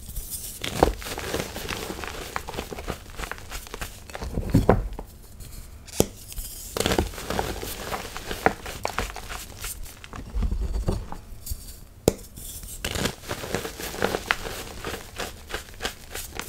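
Blocks of gym chalk crushed and crumbled by hand into loose chalk powder: crunching with many small crackles, coming in bursts with brief pauses, and a few soft low thuds.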